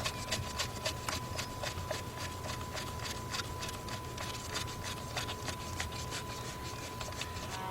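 Light, irregular clicks and rubbing of small metal nuts and parts being handled, over a steady low hum and a faint steady high-pitched tone.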